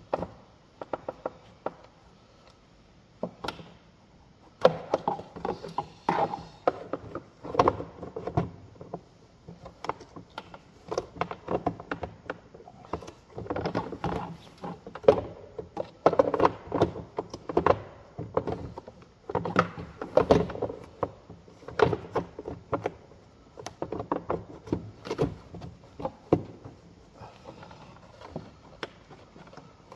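Irregular knocks, clicks and clunks from hand work on a car, with tools and parts being handled. The knocks come in uneven clusters throughout, with a quieter stretch near the start.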